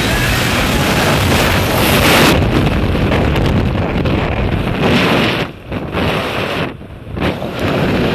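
Freefall wind rushing over the camera microphone, loud and hissing. About two seconds in the hiss eases as the tandem parachute canopy opens and slows the fall, leaving lower wind buffeting with two brief lulls near the end.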